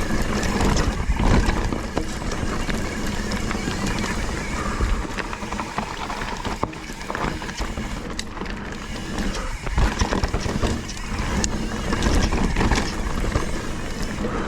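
Mountain bike riding a dirt trail: a steady rush of wind and tyre noise on the action camera's microphone, broken by frequent short clicks and knocks of the bike rattling over rough ground.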